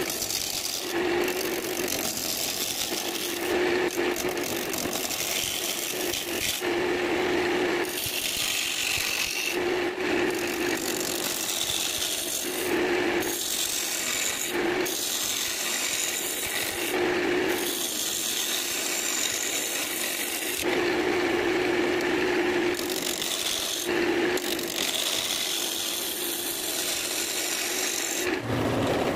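A cherry branch spinning on a wood lathe while a hand-held turning chisel cuts along its surface: a continuous scraping, shearing cut over the lathe's running, changing every second or two with a steady hum that comes and goes.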